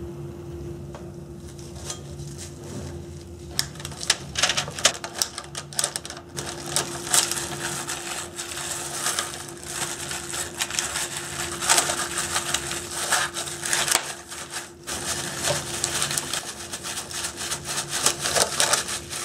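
Plastic wrap crinkling and crackling in quick, irregular bursts as a wrapped hand presses crumbly cookie dough into a parchment-lined baking pan, starting about three and a half seconds in, over a faint steady hum.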